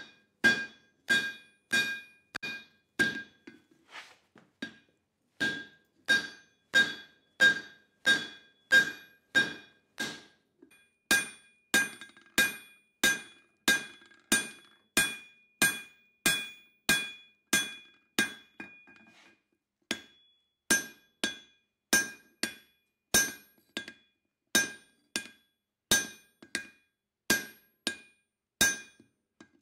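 Hand-hammer blows on a red-hot steel hammer head over an anvil, a steady rhythm of just under two strikes a second, each ringing on with a bright metallic note from the anvil. The hammering breaks off briefly about four seconds in and again near nineteen seconds.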